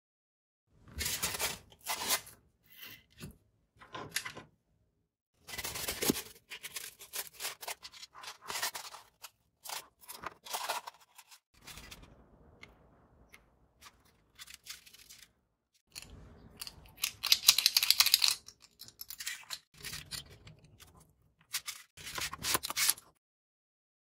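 Irregular handling noise at a workbench: bursts of scraping, rustling and light clicks as small electronic parts, wires and a foam board are handled. The loudest stretch comes about two-thirds of the way through.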